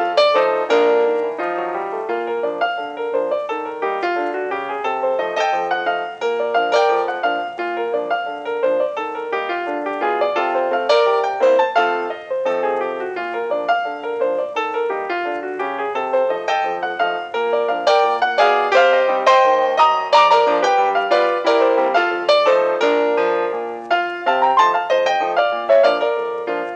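Background piano music: a steady stream of quick piano notes.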